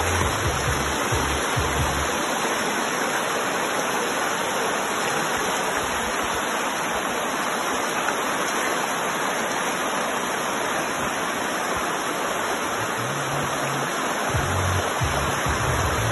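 Shallow rocky river rushing steadily over stones. Background music's bass line sounds under the water for the first couple of seconds and comes back near the end.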